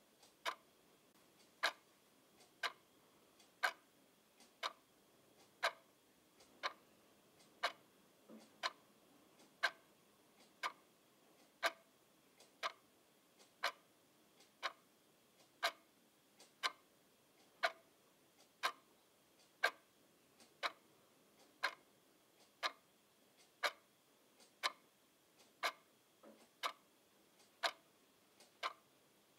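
A clock ticking steadily, about one tick a second, with a fainter tick falling between some of the louder ones.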